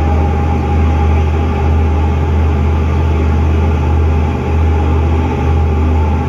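Fishing boat's engine running steadily under way, a loud low drone over the rush of water in the wake.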